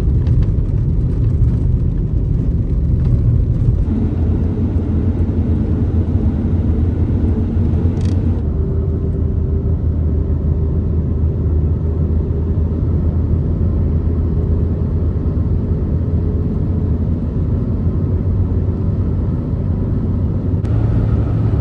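Pickup truck driving, with a steady low engine and road rumble and one short click about eight seconds in.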